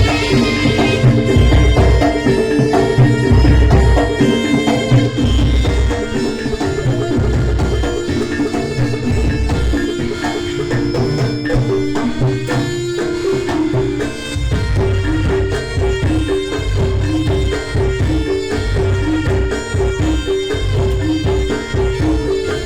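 Live Javanese jaranan (kuda lumping) ensemble music: hand drums beating steadily under a repeating stepped melody on gamelan-style metal percussion.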